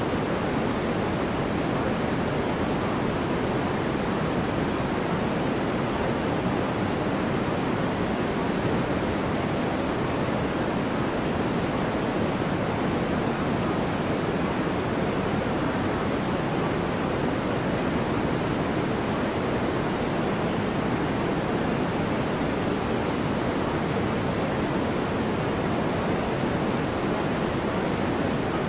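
Steady, unchanging pink-noise hiss, even and rushing with most of its weight in the low-middle range: the masking layer of a subliminal audio track.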